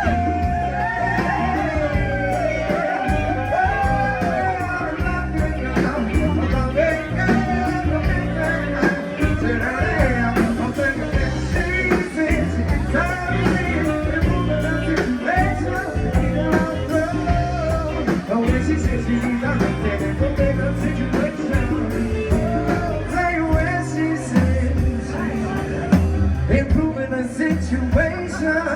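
A live rock band playing, with drums keeping a steady beat under a bass line and a wavering lead melody.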